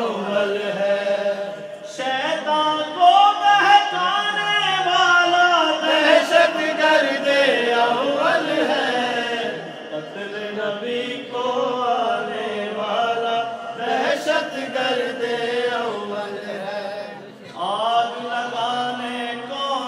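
A man reciting a manqabat, a devotional poem in praise of a holy figure, in a melodic chant with long held notes that rise and fall, pausing briefly between lines.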